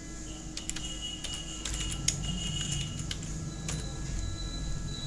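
Computer keyboard keys clicking as text is typed, about two keystrokes a second and unevenly spaced, over a steady low hum.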